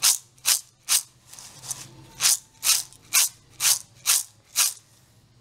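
Crisp fried chana dal (split Bengal gram) rattling and sliding in a pan as the pan is shaken to toss in its salt and chilli seasoning, in regular strokes about two a second: three, a short pause, then six more before it stops near the end.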